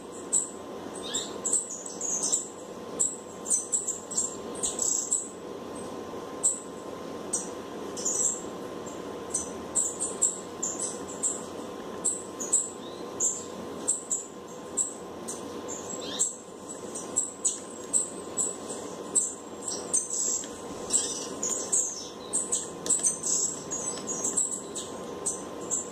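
Small birds chirping in quick, irregular high chirps over a steady low hum.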